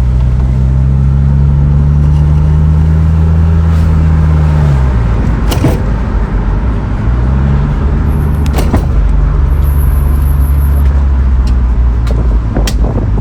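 Car engine running while driving, heard from inside the vehicle. Its note drops about five seconds in and climbs again a couple of seconds later, with a few sharp clicks in between.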